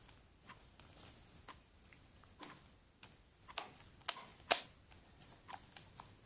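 Homemade soap-based slime being squeezed and worked in the hands, giving irregular sticky clicks and pops. Two louder pops come about four seconds in.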